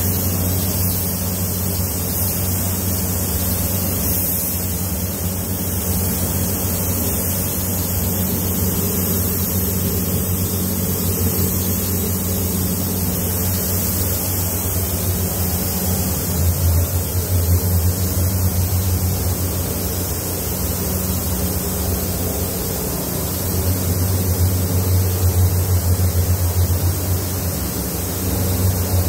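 Steady rushing hiss of compressed air from a paint spray gun and booth ventilation, over a low machine hum that swells louder twice.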